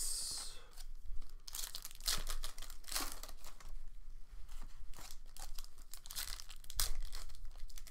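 Foil wrapper of a football trading card pack being handled and torn open by hand: irregular bursts of crinkling and tearing with a few sharp clicks.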